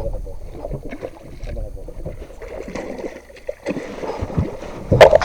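Noise aboard a small fishing boat on the water: a low steady rumble with scattered small knocks, and a loud thump near the end.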